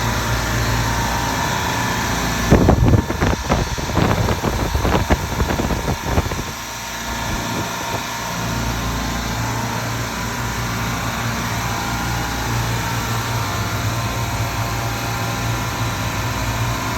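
Bitzer reciprocating compressors on a refrigeration rack running with a steady hum. A few seconds in, irregular knocking and rattling lasts for about four seconds, then the steady running continues.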